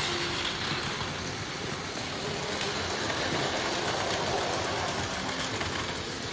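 Steady rushing background noise, even and unbroken, with no clear strokes or rhythm.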